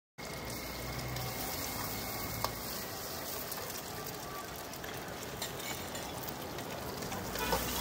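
Fried rice sizzling in a wok over a gas burner: a steady hiss with a few scattered clicks as it is stirred.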